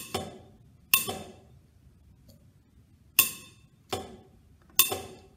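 A/C compressor clutch hub snapping onto the pulley as the clutch coil is switched on and off with jumper wires: six sharp metallic clacks, each with a short ring. The air gap is set far too wide, about 60 thousandths, so the hub pulls in at an angle and engages on one side only.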